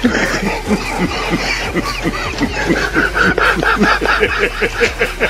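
News anchors laughing hard, a long run of short, quick laughs, about five a second.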